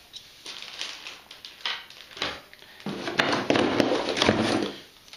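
Hands rummaging in a cardboard box, the cardboard packing insert rustling and scraping with scattered clicks, then a louder, longer stretch of scraping and rustling about three seconds in as the metal detector's lower shaft poles are worked free.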